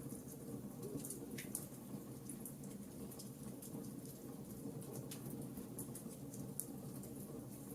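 Wood fire in a fireplace crackling, with frequent small sharp pops and snaps over a steady low rush.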